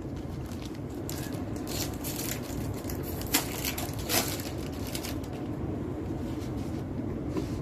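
Trading cards and booster-pack packaging being handled: soft rustling and a few short crinkling crackles over a steady low background hum.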